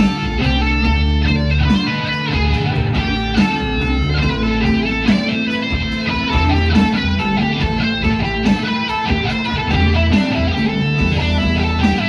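Guitar music with plucked and strummed notes over a bass line and a steady beat.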